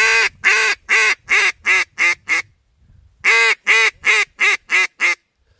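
Duck call blown by mouth, sounding the greeting call: two runs of six or seven quacks, each starting on a longer note and getting shorter and quicker. It is meant to catch a passing duck's attention and turn it toward the decoys.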